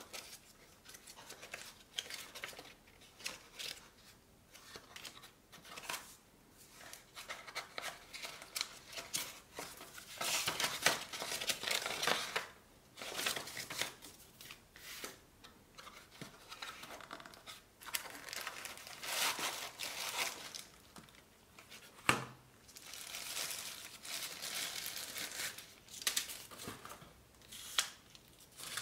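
Hands handling packaging: cardboard flaps and paper cards rustling, then a thin plastic bag crinkling as it is pulled off a lens adapter, in irregular bursts with short pauses. One sharp knock late on.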